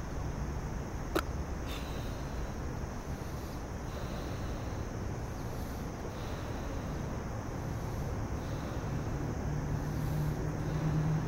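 A large latex balloon being blown up by mouth, the breaths faint under a steady outdoor rush of wind and distant city traffic. A short sharp squeak falls in pitch about a second in.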